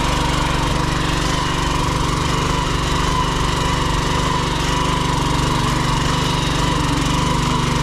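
Walk-behind power tiller's engine running steadily under load, with a fast even chugging, as its rotary tines churn the soil.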